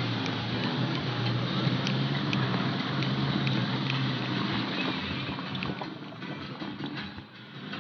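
Motor vehicle driving on the road: steady engine and road noise with scattered light knocks and rattles, easing off about seven seconds in.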